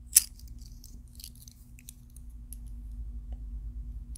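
Small silver coins (quarter-ounce rounds) clinking and sliding against each other as they are shuffled between the fingers: one sharp clink just after the start, then lighter scattered clicks. A faint steady low hum lies underneath.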